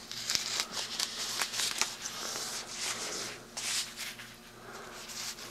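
Scissors snipping through foam packing wrap, with irregular crinkling and rustling of the wrap as it is cut and pulled apart.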